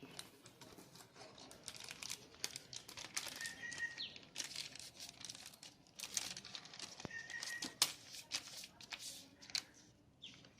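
Faint rustling and crinkling with many scattered small clicks and taps, like parts or packaging being handled, and a couple of brief high chirps.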